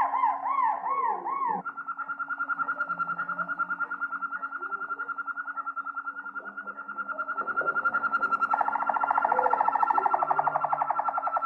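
Harzer Roller canary singing its rolled song. It opens with a run of wavy, bouncing notes, then about two seconds in switches to a fast, even trill. Near the end the trill drops lower and grows louder. A steady low hum runs underneath.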